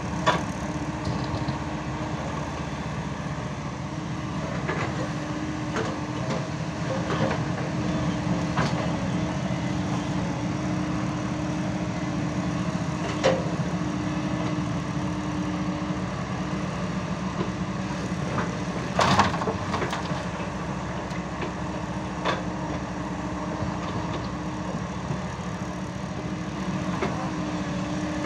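Hyundai 140 hydraulic excavator's diesel engine running steadily as the machine swings and digs soil. A few sharp clanks break through, the loudest about two-thirds of the way in.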